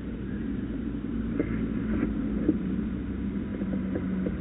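Outdoor city background: a steady low rumble and hum, with a few faint clicks and knocks.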